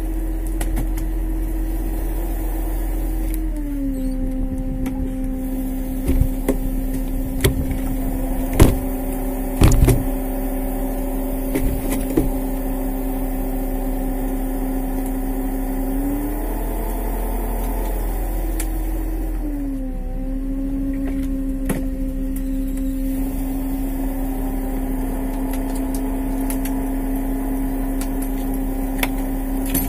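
Steady mechanical hum of the boat's hydraulic longline hauler, its pitch dropping a few seconds in, rising and wavering around the middle, then dropping back, as the load on the line changes. A few sharp knocks fall between about six and twelve seconds in, the loudest near nine seconds.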